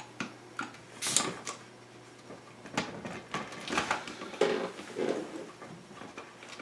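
Irregular plastic-and-metal clicks and rattles of a Magpul MOE carbine stock being worked off an AR-15's buffer tube, with its adjustment lever pulled down and the stock slid back.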